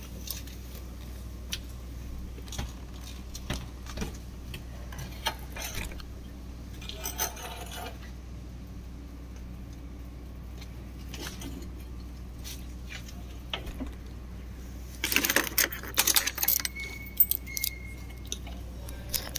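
Handling noise: scattered clicks and knocks, with a louder burst of clattering and jangling about fifteen seconds in and a brief high tone just after it.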